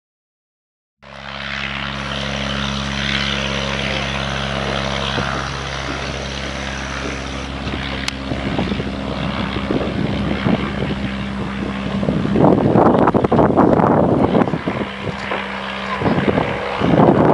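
A de Havilland Canada DHC-1 Chipmunk's piston engine and propeller, starting about a second in: first a steady, even engine note, then louder and rougher from about eight seconds in as it runs at power for the takeoff.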